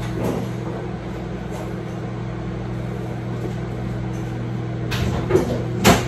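Microwave oven running with a steady electric hum. Near the end come a couple of short knocks from a cupboard or container being handled.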